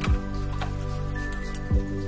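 Background music: steady held chords with a deep drum beat about every second and a half.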